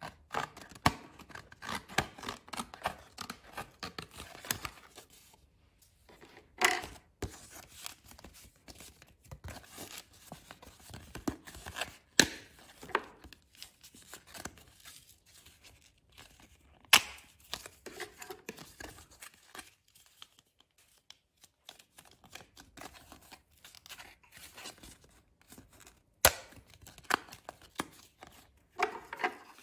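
Scissors snipping through a thin printed cardboard box, then thin cardboard and paper packs being pulled open, torn and handled close up, with a few sharp clicks of card along the way.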